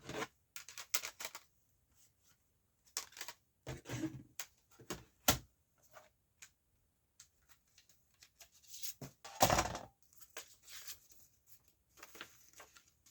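Scattered rustles and light taps of a CD box set's booklets and cases being handled, with a louder handling noise about nine and a half seconds in.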